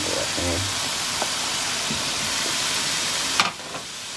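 Sliced bell peppers sizzling as they are tipped into a hot pan of fried chicken masala: a steady frying hiss with a few light knocks of a wooden spoon. A sharper knock about three and a half seconds in, after which the sizzle drops.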